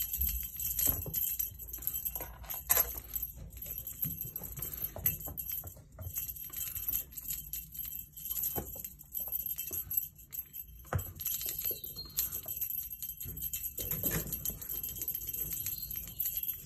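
Kittens playing with a wand toy: a light jingling runs on and off, with scattered sharp clicks and taps from the toy and the kittens on the cat tree. The sharpest clicks come about three seconds in and again about eleven seconds in.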